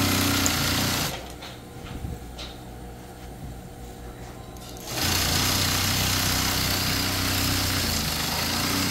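Industrial sewing machine running steadily as it stitches an insulation cover. It stops about a second in and starts again about five seconds in.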